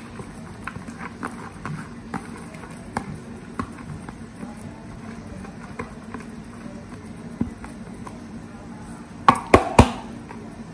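Chopped carrots and capsicum in oil in a wok, crackling faintly with scattered small pops over a low steady hum. About nine seconds in come three or four sharp knocks close together.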